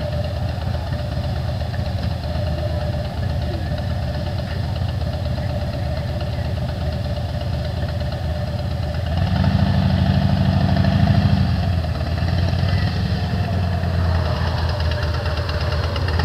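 Motorcycle engine idling steadily, picking up in speed and loudness for about two seconds a little past the middle, then settling back to idle.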